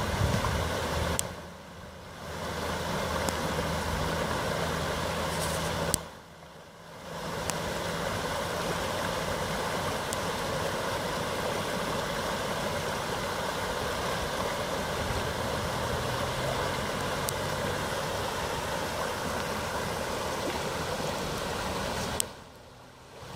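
Muddy floodwater rushing down a river in spate after heavy rain: a steady, even rush of water, with a low hum underneath at times. The sound drops away briefly a few times.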